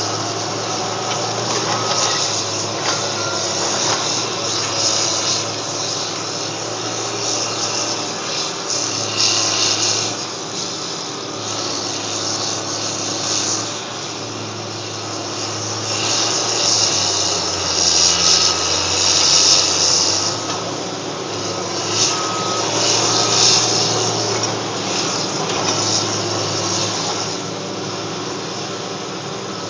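Tracked bulldozer working in demolition rubble: its diesel engine runs with a steady drone under a loud, rough scraping and crunching of debris that swells and eases, loudest a little past the middle.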